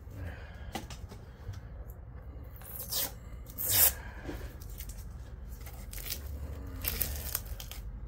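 Short, irregular rasping and tearing noises from work on a scrap transformer: a few sharp strokes about three seconds in, just before four seconds, and around seven seconds, with quieter scraping between them.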